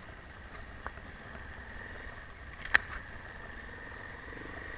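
Enduro motorcycle engine running steadily under a slow ride through snow, heard low and muffled. A single sharp click comes just under three seconds in.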